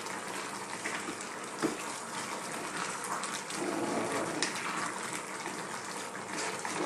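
Wooden spatula stirring a wet, hot seafood curry in a pan: the thick sauce squelches and sloshes over a steady hiss, with an occasional knock of the spatula against the pan.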